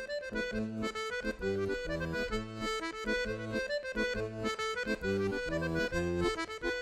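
Accordion music: bass notes on a steady beat with chords and melody held above them.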